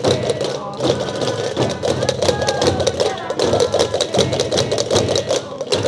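Many Gomeran tambores, traditional wooden drums, beaten together in a fast, even processional rhythm, with the sharp clicking of chácaras, large Canarian castanets, over the drumming.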